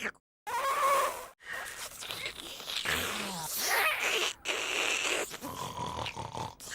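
Noo-Noo, the Teletubbies' toy vacuum cleaner, making its sucking and snuffling sound effects in several short clips cut abruptly one after another.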